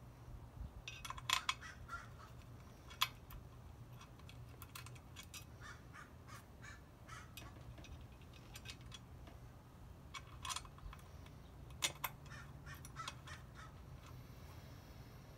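Small steel brake-rotor hardware (bolts, washers, anti-knockback springs and bobbins) clicking and clinking against each other and the AP Racing rotor ring as it is fitted by hand. The clicks are scattered and light, with a few sharper ones.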